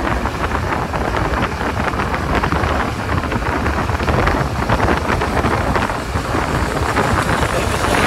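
Heavy wind buffeting a helmet-mounted microphone on a moving motorbike, a loud, steady rumbling rush.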